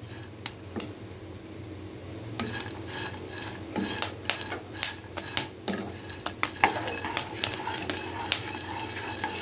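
A spatula stirring red sugar-coated popcorn in a non-stick pan: the popcorn rustles, and the spatula scrapes and knocks against the pan in irregular clicks.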